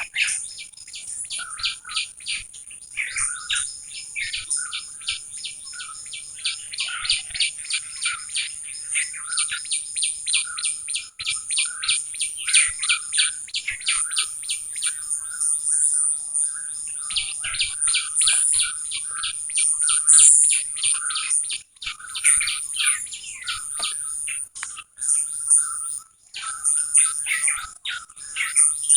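Wild birds chirping and singing in quick, repeated trills, over a steady high-pitched ringing tone.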